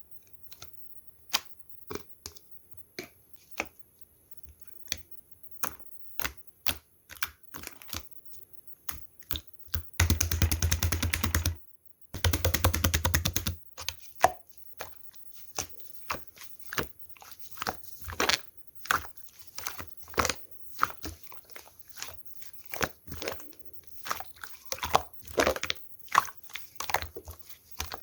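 Slime being played with by hand: irregular sticky clicks and pops, with two spells of rapid, dense crackling about ten and twelve seconds in.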